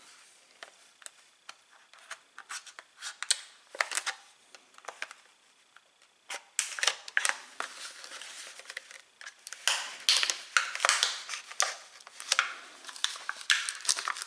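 Packaging of a new bicycle tool being opened and handled by hand: a run of sharp clicks, snaps and crinkles, sparse at first and denser and louder from about six and a half seconds in.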